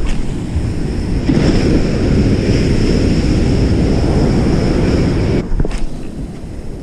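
Wind buffeting the microphone over waves breaking on a sandy beach: a loud, steady rushing that eases about five and a half seconds in.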